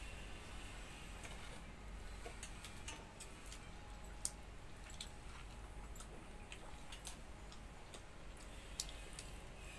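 Close-up eating sounds from a person eating watered fermented rice and a fried potato-and-pointed-gourd side by hand: soft chewing, small wet mouth clicks and squishes. Two sharper clicks stand out, one near the middle and one near the end, over a faint low hum.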